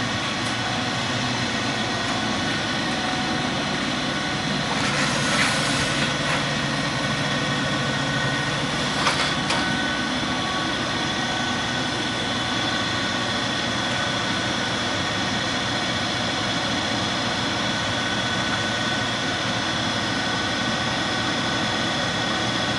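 RTC LA-310X infrared belt furnace running: a steady machine drone with several steady tones over it. Two brief louder rushes of noise come about five and nine seconds in.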